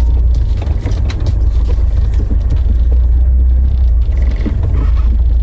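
A 1990 Honda Civic EF engine idling cold with a steady low rumble, its idle sitting a bit low.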